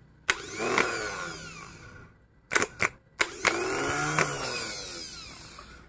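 Rebuilt car starter motor bench-tested off a battery by touching a jumper wire to its solenoid terminal. Twice, a sharp click is followed by the motor whirring up and then falling away in pitch as it coasts down, with a few short clicks between the two runs: the serviced starter spins freely.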